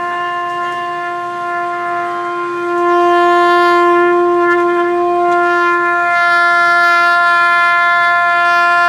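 Trumpet held on one long, steady note with no wavering in pitch; it grows louder about three seconds in.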